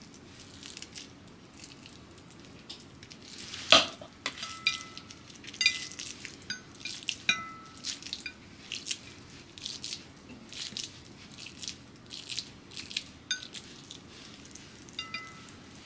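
Scattered light clicks and clinks of a metal spoon against a food processor bowl, several ringing briefly, with a sharper click about four seconds in. Between them are soft sounds of a sticky nut-and-honey mixture being pressed between the hands.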